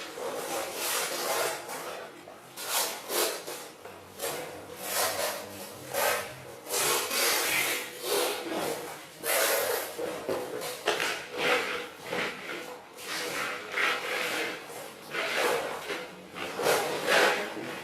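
Repeated rough scraping strokes of a hand tool rubbing across a surface, uneven in rhythm at about one or two strokes a second.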